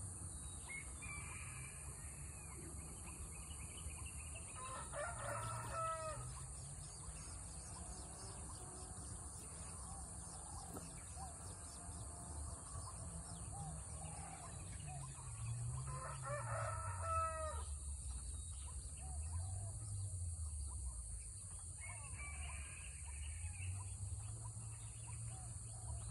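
A rooster crowing twice, about ten seconds apart, over faint chirping of small birds and a steady high-pitched hiss.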